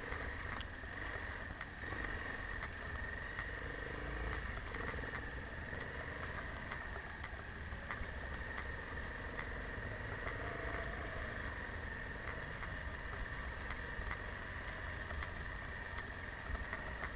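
Enduro motorcycle engine running steadily as the bike rides slowly over a snowy track, with light clicks every second or so.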